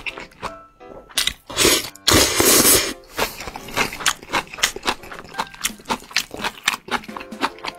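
A person eating close to the microphone: wet chewing clicks throughout, with two loud slurps about one and a half and two and a half seconds in.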